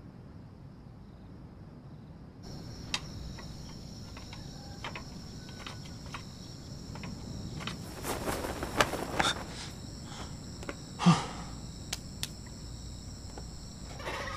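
Crickets chirping steadily in a night ambience, starting about two and a half seconds in. Scattered sharp clicks and swishes sound over them, the loudest a falling swish about eleven seconds in.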